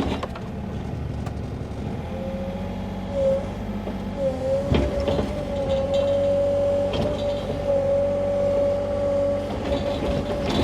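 Sany mini excavator's diesel engine running at raised throttle while digging, with a steady whine that sets in about two seconds in and a single knock near the middle.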